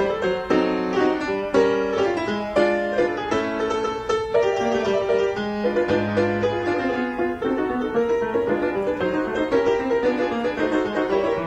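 Piano music: a melody of many quick notes over lower bass notes.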